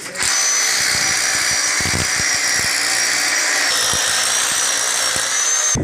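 Electric drill running steadily for about five seconds with a high whine, most likely boring a hole for the pump's pipe clamp. It starts abruptly, eases slightly in tone partway through, and stops abruptly.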